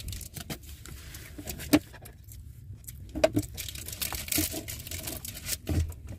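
Paper wrapper on a slice of cake being handled and peeled, with crinkling and scattered small clicks and taps, over the steady low hum of a car.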